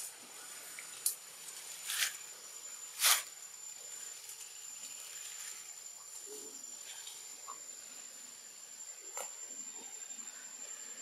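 A steady, thin, high-pitched insect drone, broken by a few short, sharp clicks, the loudest about three seconds in.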